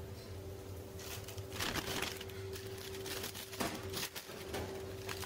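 Paper wrapper rustling and crinkling several times as it is handled and opened to wrap a take-away galette, over a steady hum.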